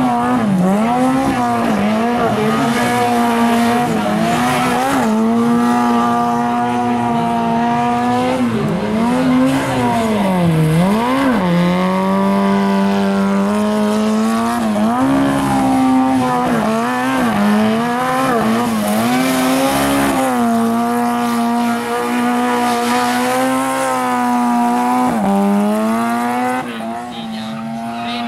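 Autobianchi A112's four-cylinder engine run at high revs through a gymkhana course. Its pitch dips and climbs again sharply every second or so as the driver lifts and pulls through the tight turns, holding steadier on the straighter stretch. The tyres squeal as the car slides round the barrels.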